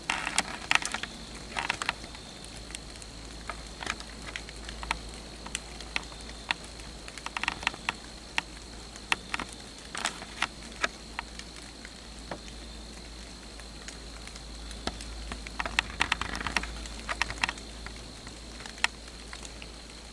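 Whitetail deer walking through dry fallen leaves: scattered sharp crackles and clicks, with bursts of leaf crunching about a second in, around 8 to 11 seconds in and around 16 seconds in.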